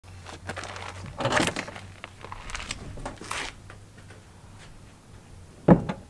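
Diamond-plate metal door with a hidden latch being worked and swung open: scattered clicks and rattles from the latch and door, then one sharp knock near the end.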